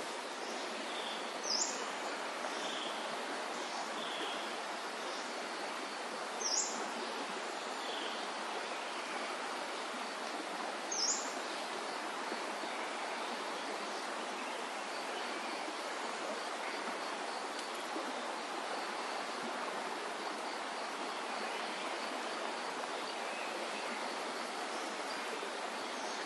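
Steady rushing of flowing river water over rocks, with birds calling. Three loud, sharp, falling chirps come about five seconds apart in the first half, and fainter repeated high notes run under them.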